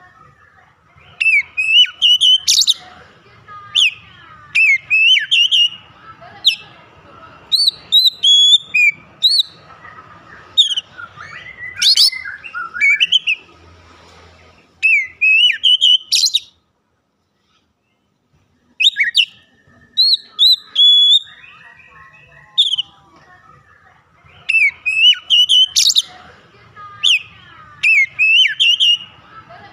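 Oriental magpie-robin singing a loud, varied song of quick whistled notes, slurs and glides in rapid bursts. It breaks off completely for about two seconds just past the middle, then resumes.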